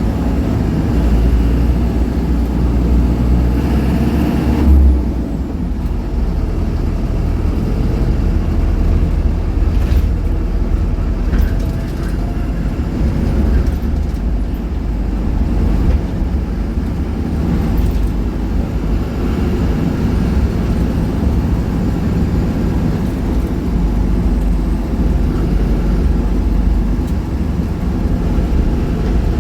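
Small city bus (minibus) running, a steady low engine and road rumble. About five seconds in there is a brief louder bump, after which the rumble settles slightly lower.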